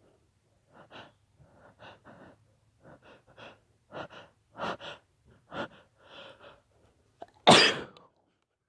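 A person's short, catching breaths, often in pairs and growing louder over several seconds, build up to one loud sneeze near the end.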